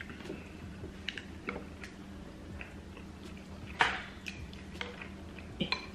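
Eating at a table: scattered small clicks and soft wet smacks, with one sharp crack or clink about four seconds in, the kind made handling and cracking seafood boil shells and utensils.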